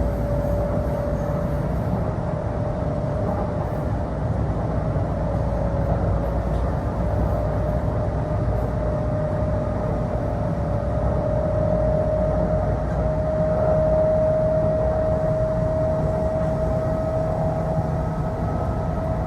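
Inside a Kintetsu Osaka Line local train: a steady low rumble with a single whine that climbs slowly in pitch.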